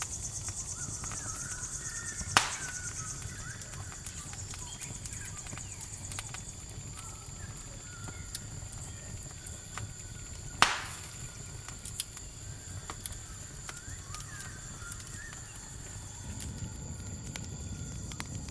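Campfire crackling, with two loud sharp pops, one about two seconds in and one about halfway, and scattered small clicks, over a steady high chirring of crickets.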